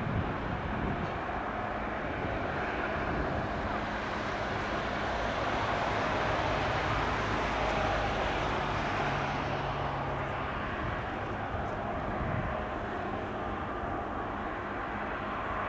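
Steady rushing aircraft noise with a faint low hum, swelling toward the middle and easing off again.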